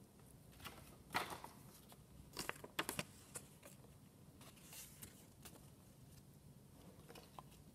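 Paper instruction sheet rustling and crinkling as it is handled and unfolded, with a cluster of sharper crackles and handling noises near the middle.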